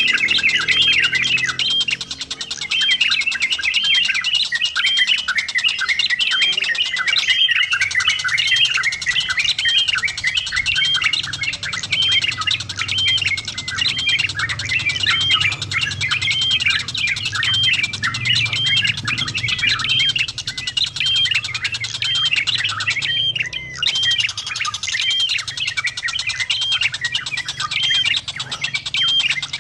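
Yellow-vented bulbul (trucukan) calling noisily and almost without pause: a quick, repeated chattering phrase of looping up-and-down notes, one or two a second. There are two brief breaks, about a quarter of the way in and again near the end.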